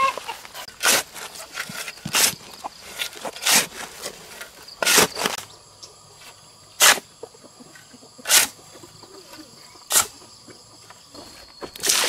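A run of seven short, rough, noisy strokes, roughly one every one and a half seconds. Behind them is faint, steady insect chirring.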